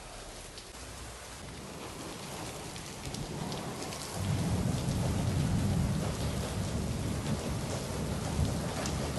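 Heavy rain falling with a steady hiss, and a long low rumble of thunder that sets in about four seconds in and rolls on, louder than the rain.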